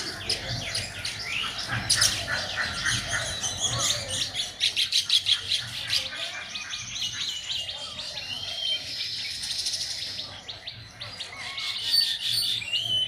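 Birds chirping, many short quick calls overlapping in a busy chorus, with a fast run of repeated chirps in the middle.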